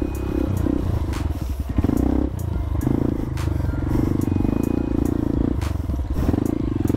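Dirt bike engine revving hard in uneven surges, its pitch rising and dropping every second or so, with scattered sharp clicks.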